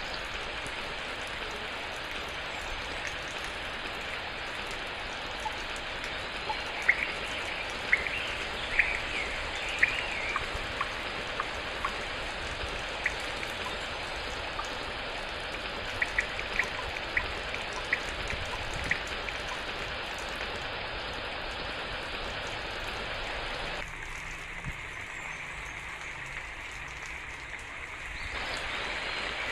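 Steady rain falling, with sharp individual drops ticking close by in two short runs. Near the end the rain turns duller and softer for a few seconds before coming back up.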